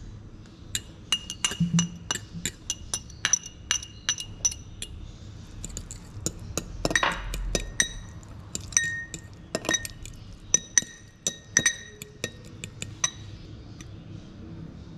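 A metal fork clinking against a small glass bowl, tapping quickly and irregularly with a short ring after each tap, as it mixes grated garlic into melted butter. The tapping stops about two seconds before the end.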